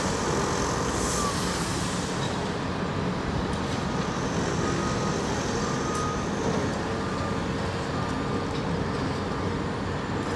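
Heavy construction machinery running steadily, most likely the big crane's diesel engine as it holds a 30-ton excavator in the air. A few faint short high beeps come and go over it.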